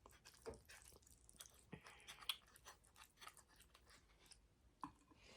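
Quiet chewing of a mouthful of saucy spaghetti: soft, irregular wet mouth clicks and smacks, a few of them louder.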